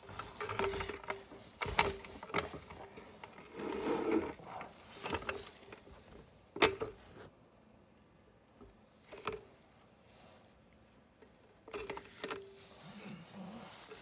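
Floor jack being moved and set in place under a car's jacking point: irregular metallic clicks, knocks and rattles, with a lull of a few seconds in the middle before more clicking.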